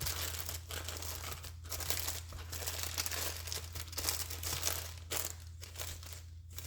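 Paper rustling and crinkling as a junk journal's papers are handled and a loose piece is tucked under, with a steady low electrical hum beneath.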